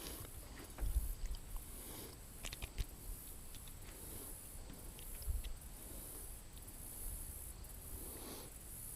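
Faint handling noise from a just-caught bluegill being unhooked: a few soft clicks and low thumps over a steady hiss.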